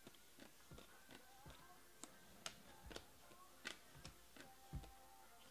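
Faint, irregular clicks of a stack of 2020 Topps Finest baseball cards being flipped through by hand, about two or three a second, over faint background music.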